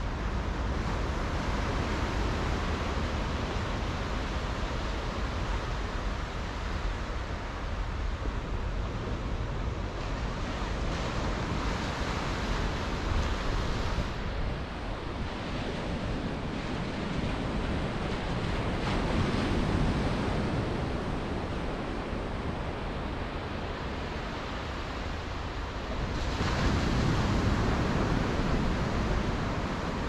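Small waves breaking and washing up a sandy beach on a calm sea, with wind noise on the microphone. The surf swells louder about two-thirds of the way through and again near the end.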